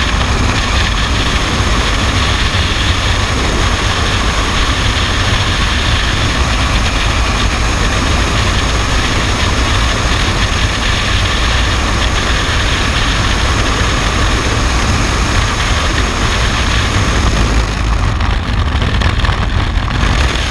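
Freefall wind rushing over the camera microphone: a loud, steady roar with a deep rumble underneath. The hiss dims slightly near the end.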